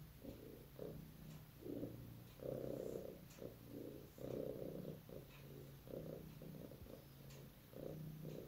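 Domestic cat purring, rising and falling in uneven swells about once a second.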